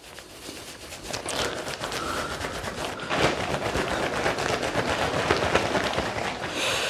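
Rinse-free shampoo cap being rubbed and massaged over the hair with both hands: a steady rustling, scrunching scrub of many short strokes that builds up over the first second.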